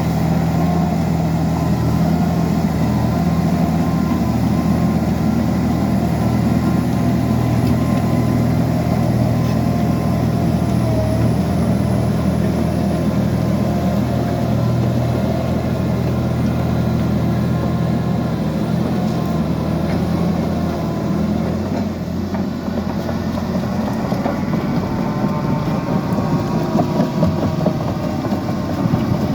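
Liebherr 754 crawler dozer's diesel engine running steadily, with a deep even hum. About two-thirds of the way through it drops slightly and turns rougher.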